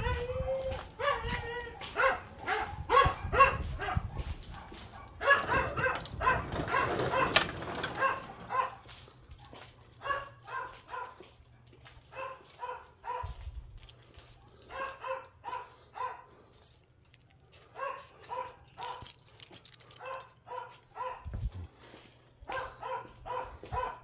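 A dog yipping and whimpering in quick runs of short, repeated calls, some louder near the start and fainter through the middle.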